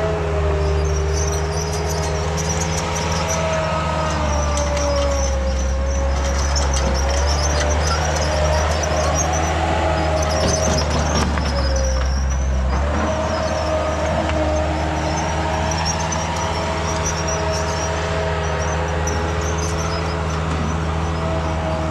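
Engine of an earth-moving machine running steadily under work, with a wavering whine above the low engine note. Near the middle the whine fades for a moment among a few knocks, then returns.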